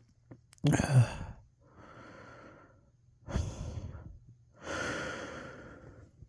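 A person breathing heavily and noisily right up against the microphone during a hay-fever sneezing fit. There are four breaths in and out, and the first, a little over half a second in, is the loudest and sharpest.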